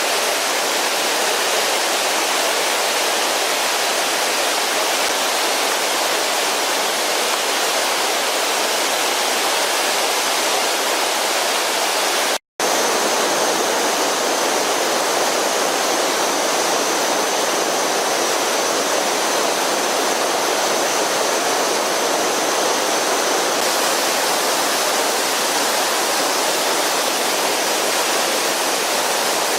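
Waterfall and its rocky stream rushing steadily, running high and fast after days of heavy monsoon rain. The sound cuts out for an instant about twelve seconds in. After that a faint, steady high whine sits above the water.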